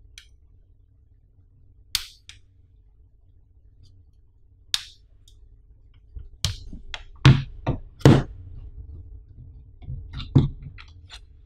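Handling of a plastic power bank case with a smartphone in it: scattered sharp clicks and taps, then a burst of louder knocks and thuds about six to eight seconds in, and a few more taps and a thud near the end as the cased phone is set down.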